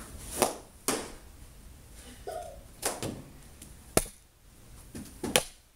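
Knee hockey play: about five sharp knocks and clacks from mini hockey sticks striking the ball, and the ball hitting sticks, pads or the wall.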